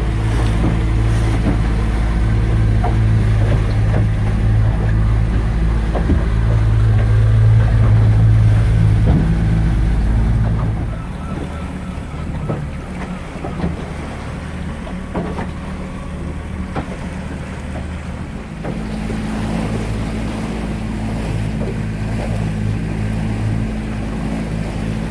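Small fishing boat's outboard motor running underway, a steady hum. The engine note drops about eleven seconds in and picks up again a few seconds later. Scattered small knocks come through over the top.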